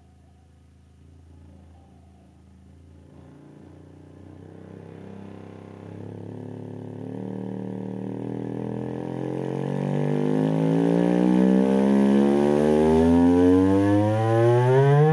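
A JBL Control CM42's 4-inch woofer, unmounted in free air, playing a slow low sine sweep for an excursion test. The tone rises gradually in pitch and grows steadily louder, with a buzzy edge from strong overtones.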